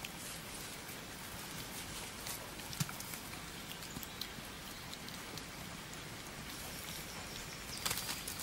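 Wild boar piglets scuffling and rooting on soil and an old blanket: scattered small ticks and rustles over a steady hiss, with a flurry of louder scuffling near the end.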